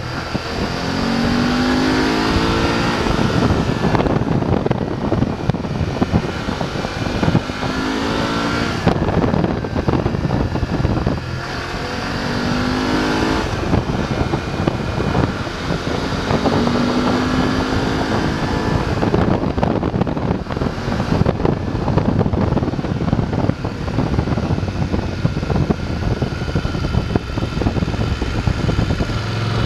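BMW F 850 GS parallel-twin engine under way, accelerating hard several times with a rising pitch, then breaking off briefly at each gear change or throttle close, over steady wind rush.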